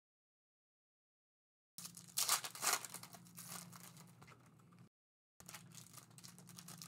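Foil trading-card pack wrappers crinkling and tearing as packs are opened by hand, over a low steady hum. The sound drops out completely for the first couple of seconds and again for a moment near the middle.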